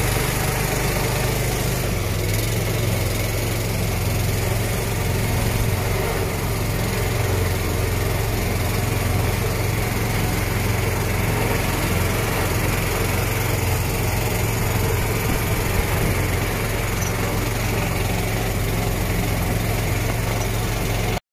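Engine of a small tour boat running steadily while the boat is under way, heard on board as an even hum with a constant rush of wind and water noise over it.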